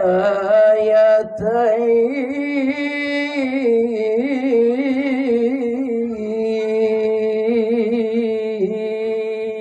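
A man reciting the Quran in the slow, melodic chanted style (tajweed), stretching one phrase into long, wavering, ornamented held notes, with a short break about a second in.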